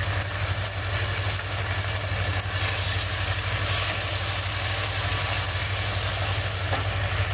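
Onions and green peppers sizzling in sauce in a non-stick kadai, with a wooden spatula stirring and scraping through them, over a steady low hum.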